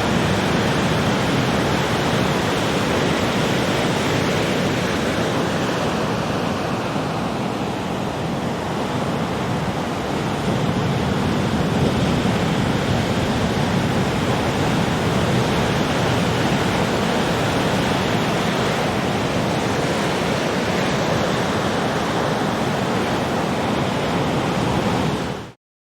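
Heavy ocean surf: a continuous rush of breaking waves, swelling and easing slightly, that cuts off abruptly near the end.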